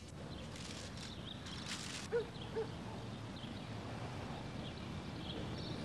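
Steady background ambience with a few faint clicks early on. Two short squeaky chirps come about two seconds in, and fainter high chirps are scattered through it.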